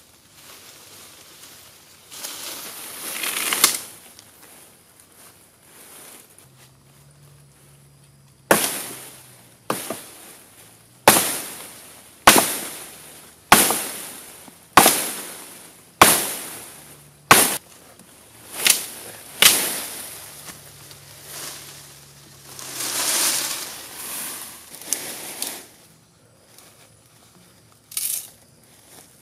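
Chopping into a green sapling trunk: about ten sharp strikes in a row, a little over one a second. Rustling of leaves and branches comes before and after, and near the end one sharp crack as the forked branch is split apart.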